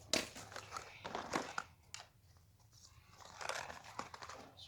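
Packaging crinkling and rustling as a small surprise packet is handled and opened, with a run of crackles at first, a quieter pause around the middle, then more crinkling near the end.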